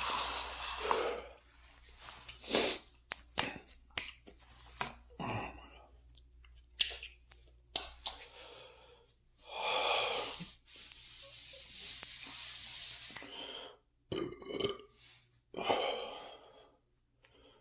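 Mouth sounds of a man eating while overfull: chewing and small clicks, a few short burps, and two long breathy exhales in the middle, with the strained breathing of a stuffed stomach.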